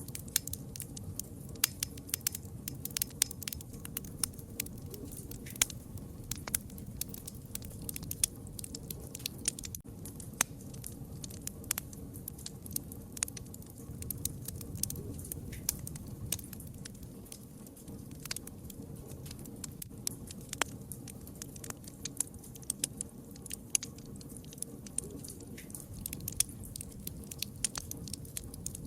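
Campfire crackling: frequent, irregular sharp pops and snaps over a low steady rush.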